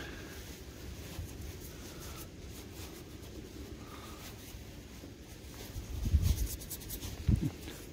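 Fingers rubbing soil off a freshly dug old copper penny, a dry scratchy rubbing over low rumble. A dull bump about six seconds in and another just after seven are the loudest sounds.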